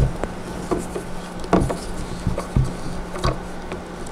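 Screw being driven by hand with a Phillips screwdriver through a wooden doll high chair's tray arm into a plastic insert: irregular small clicks, taps and rubbing, with a couple of louder knocks.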